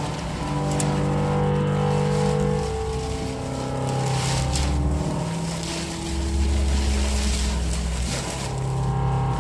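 Background music: sustained chords over deep bass notes that change every two to three seconds, with a steady hiss underneath.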